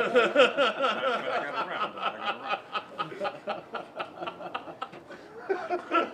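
A group of men laughing together in quick rhythmic chuckles, loudest at the start and dying down, with a fresh burst of laughter near the end.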